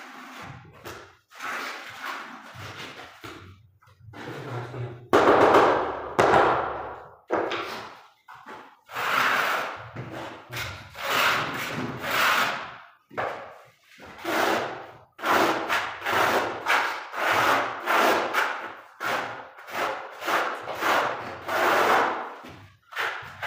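Notched steel trowel scraping tile adhesive across a concrete floor in repeated strokes, about one a second, spreading the bed for porcelain floor tiles.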